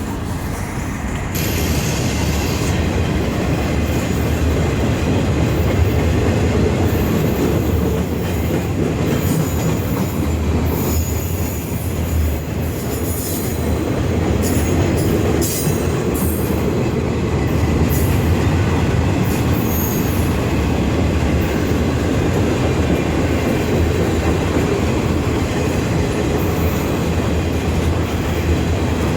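Freight cars of an empty military train rolling past in a steady rumble, with high-pitched wheel squeal coming and going.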